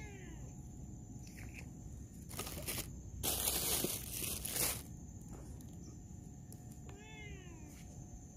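A cat meowing twice, once at the start and once about seven seconds in. In between, about two to five seconds in, comes a louder, rough rustling noise.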